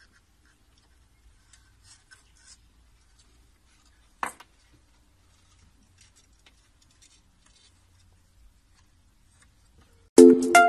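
Faint, scattered small scratching and ticking sounds, with one sharper click about four seconds in. Music with a steady beat starts suddenly near the end.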